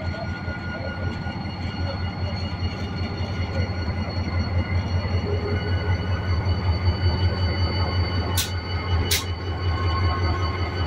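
EMD GT22-CW diesel-electric locomotive running, with its 12-cylinder two-stroke engine giving a deep steady drone that grows louder through the middle, and several steady high-pitched tones over it. Near the end come two brief sharp sounds, less than a second apart.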